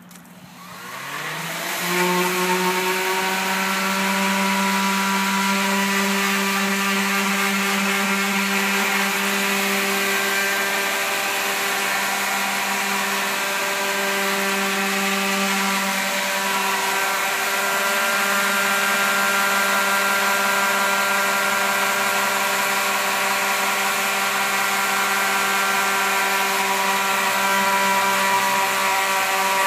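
Electric power sander starting up, its pitch rising over the first two seconds, then running steadily with a high whine over a rasping hiss while it sands stripped wood down to bare wood with 80-grit paper.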